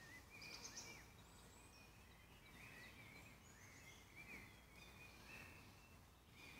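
Faint woodland birdsong: several small birds giving short, high chirping phrases over quiet background hiss.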